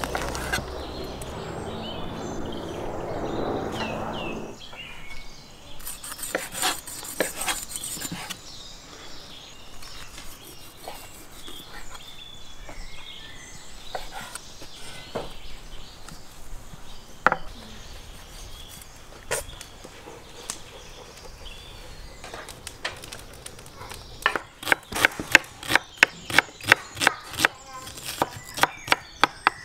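A steady noise with a low hum for about the first four seconds, which cuts off suddenly. Then scattered knocks and clicks, and from about six seconds before the end a knife chopping on a wooden board, two to three strokes a second.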